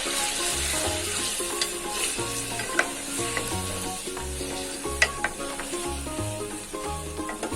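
Potato pieces sizzling in hot oil in a nonstick pan, with a spatula stirring them and a few sharp clicks against the pan. Background music with a repeating bass line plays throughout.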